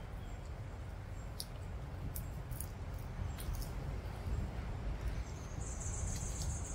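Aldabra giant tortoises biting and chewing cut grass: short crisp snaps and crunches scattered through the clip, over a steady low rumble. Near the end a high, steady trill comes in for about a second.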